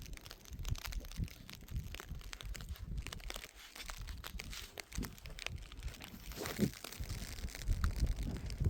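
Irregular crackling and crinkling, like plastic or dry material being handled, with low rumbling, wind-like noise in the last couple of seconds.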